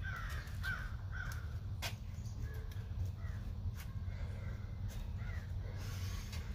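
A bird giving several short calls, a second or so apart, over a steady low rumble, with a few sharp clicks in between.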